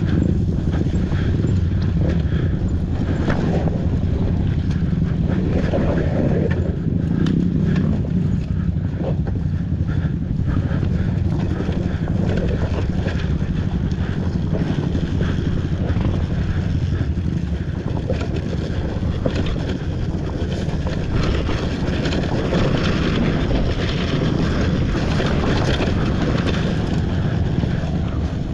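Dirt bike ridden on a trail, its engine running steadily under heavy wind noise on the microphone, with scattered knocks from the rough ground.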